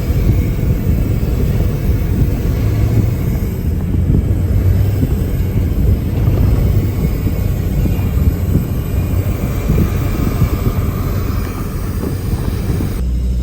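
Vehicle driving, a heavy, rough low rumble that shifts abruptly near the end.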